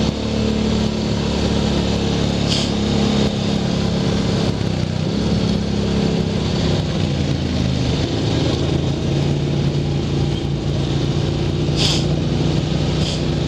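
Single-cylinder ATV engine running steadily under way, with wind noise over the microphone. The engine note dips and then climbs again about halfway through, and a few brief sharp high sounds come once early on and twice near the end.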